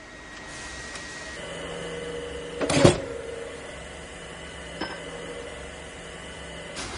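Factory machine running with a steady hum, with a loud short burst of noise just under three seconds in and a sharp click near five seconds.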